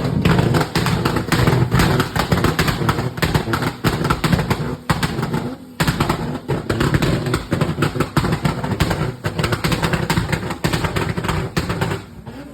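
Rapid, sustained AR-15-style gunfire, many shots a second, played loud through a car audio system over a low steady bass. It cuts off sharply near the end.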